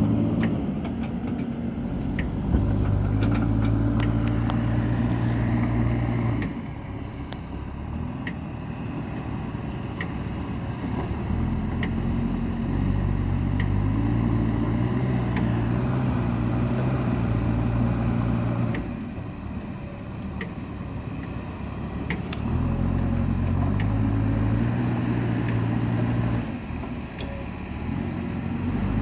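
Diesel engine of a JCB backhoe loader at work, revving up under load and dropping back to a lower speed three times.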